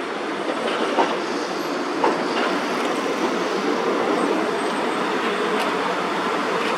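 Hiroden streetcar rolling along street-running tram tracks with a steady rumble, its wheels clacking sharply over rail joints about one and two seconds in.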